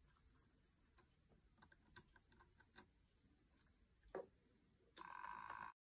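Faint scattered clicks of hands handling a small electric spinning wheel, a louder click about four seconds in, then the Electric Eel Wheel Nano 2.0's motor starts up with a steady whine about a second later and breaks off suddenly near the end.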